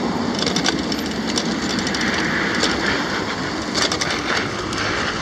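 Steady rushing traffic and road noise heard from a moving bicycle, with scattered irregular clicks and rattles.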